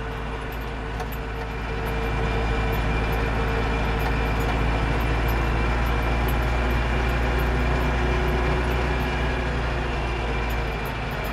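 Landini Blizzard 65 tractor's diesel engine running steadily at road speed, about 30 km/h in a high road gear, heard from inside the cab along with tyre noise on a gravel road. The level rises a little about two seconds in and then holds steady.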